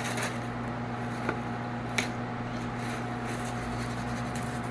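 Plastic seasoning shaker bottle shaken and tapped over raw steaks: a couple of short ticks and faint rattles of seasoning, over a steady background hum.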